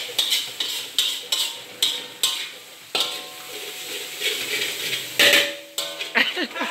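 A metal spatula scrapes and knocks against a steel wok in steady stir-frying strokes, about two a second, with a ringing clank and a frying sizzle underneath. There is a longer, louder scrape about five seconds in.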